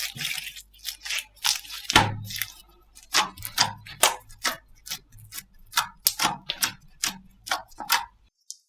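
Slime being squished and pressed, giving a run of sharp clicks and pops about two to three a second that stop suddenly shortly before the end.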